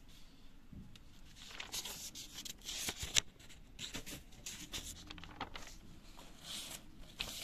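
Paper rustling as the pages of a book are turned and handled, in irregular bursts with a few sharp clicks, the loudest stretch about two to three seconds in.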